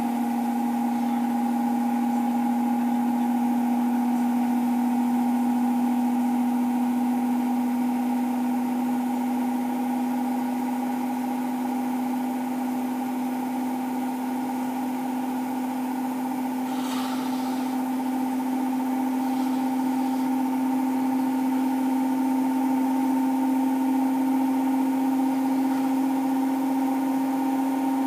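Indesit Innex BWE91484 washing machine in its final spin at full speed, rated 1400 rpm, which the uploader reckons is really nearer 1450–1500 rpm. The motor and drum run as a steady hum with a higher whine above it, the pitch creeping up slightly.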